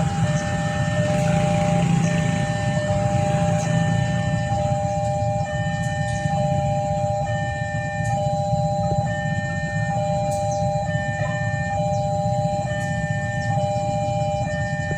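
Railway level-crossing warning alarm sounding: a steady electronic tone with a second tone that switches on and off about once a second, over a steady low rumble.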